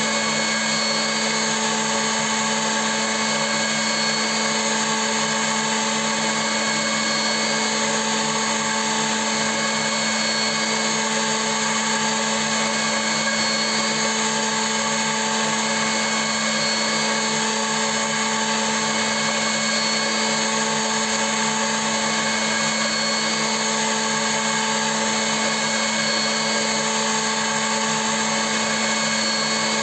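CNC milling machine running steadily: an unchanging motor hum with several higher whining tones above it.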